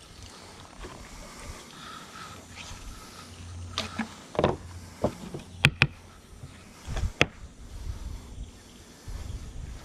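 Fillet knife and fish being handled on a wooden cutting board: a handful of short, sharp knocks and clicks, two of them close together mid-way, with low rumbling between them.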